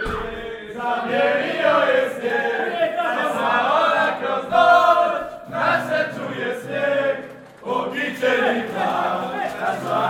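A group of male voices singing together in a loud, chant-like chorus, with short pauses between phrases.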